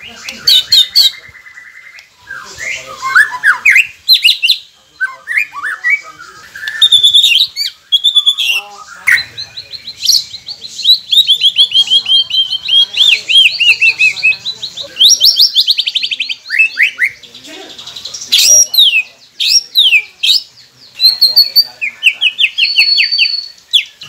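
White-rumped shama singing a long, varied song: loud whistles, fast rattling trills and sharp chattering phrases, broken by short pauses.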